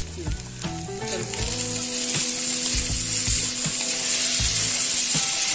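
Onion-tomato-curd masala sizzling in a hot kadhai as boiled noodles are added, with a spatula scraping and knocking against the pan as they are stirred in. Background music plays underneath.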